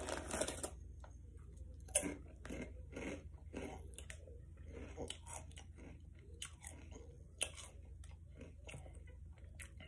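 A person chewing and crunching a snack close to the microphone, with irregular crisp crunches and chewing sounds between them.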